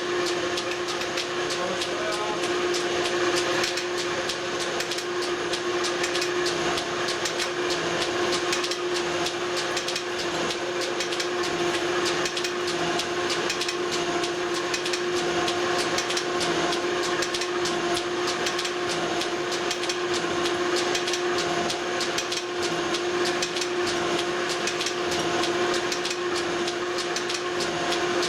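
Metal shaper running and cutting metal stock into excavator bucket teeth: a steady machine hum with a constant fine crackle from the cut.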